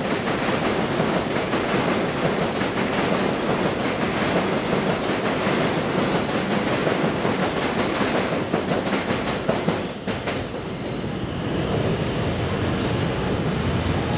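Subway train running overhead on a steel elevated track, a loud, steady rumble and clatter that drops off about ten seconds in.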